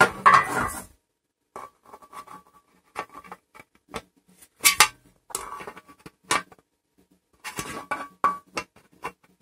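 Rigid dish-antenna reflector sections knocking, clattering and scraping against each other as they are pushed and struck together to force the locking lugs in, with several sharp clonks.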